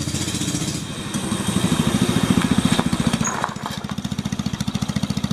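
Small single-cylinder minibike engine running with an even putt-putt beat. It is loudest around two seconds in, then eases back quieter from about three and a half seconds in.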